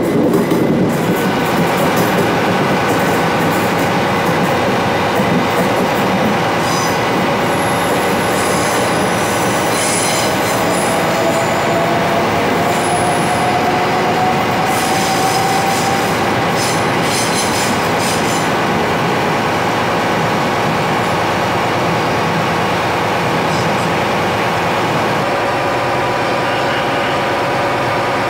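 Passenger train moving close by with a steady rumble of wheels on rail. High, thin wheel squeals come and go through the middle, and a slowly rising motor whine is heard.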